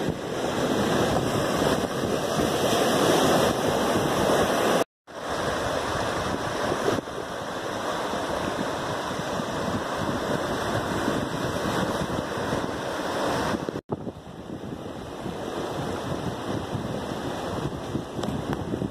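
Surf breaking and washing over a sand and boulder shore, mixed with wind buffeting the microphone. The sound cuts out briefly twice, about five seconds in and again near fourteen seconds, and is a little quieter after the first cut.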